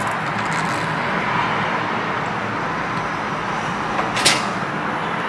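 Steady rushing background noise with no pitch, with a short hiss about four seconds in.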